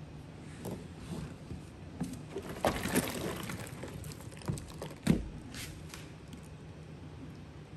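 Scattered handling sounds: a few soft clicks, a brief crackling stretch about three seconds in, and one sharper knock, the loudest, about five seconds in.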